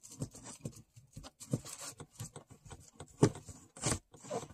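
Paintbrush scrubbing paint onto a picture frame: a string of quick, irregular scratchy strokes, with a couple of louder knocks near the end.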